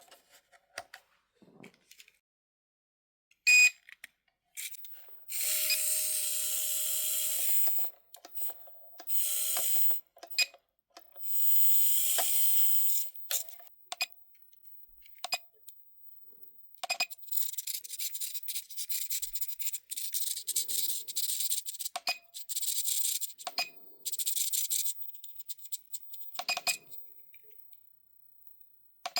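Racent RDS64 1/64-scale micro RC car's tiny electric motor and drivetrain whirring in bursts of throttle: three runs of about two seconds each, then a string of shorter, choppier blips, with small clicks and knocks in between.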